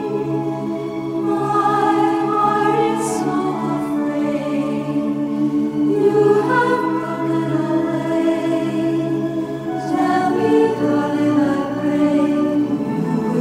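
End-credits film music: a choir singing long held chords, with the harmony shifting about six seconds in and again near ten seconds.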